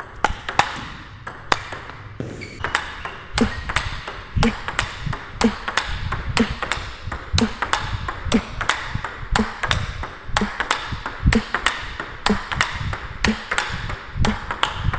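Table tennis ball being hit back and forth in a topspin rally: sharp clicks off the rackets and the table, one of the rackets on a DHS Hurricane King Wang Chuqin blade. The clicks are sparse for about two seconds, then settle into a steady rhythm of a few per second.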